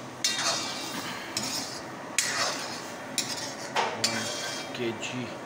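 Metal ladle scraping and clanking against a metal cooking pan as chicken in sauce is stirred, in several sharp strokes about a second apart.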